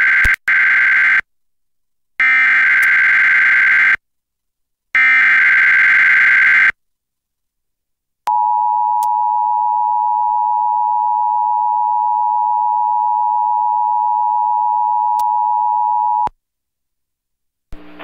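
Emergency Alert System alert opening: three short bursts of harsh, screeching SAME header data, the first already under way, then after a pause the EAS two-tone attention signal, a steady tone lasting about eight seconds that cuts off abruptly.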